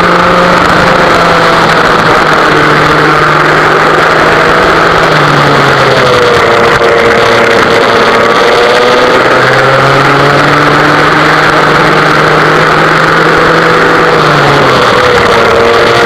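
Vintage West Bend two-stroke single-cylinder kart engine running hard, heard onboard the kart. The engine note drops about five seconds in and again near the end as the revs fall and build again around the track.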